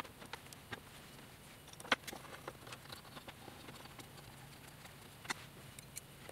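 Faint, scattered clicks and taps of small screws being fitted and tightened by hand into a plastic cable drag chain on its raceway; the sharpest click comes about two seconds in, with a few more near the end.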